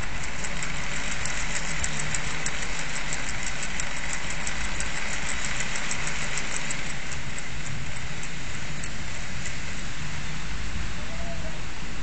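Steady rushing of typhoon wind at an open window, with a fast, regular light ticking, about five a second, from the wind-driven ECO RIDER toy's spinning propeller mechanism; the ticking fades out near the end.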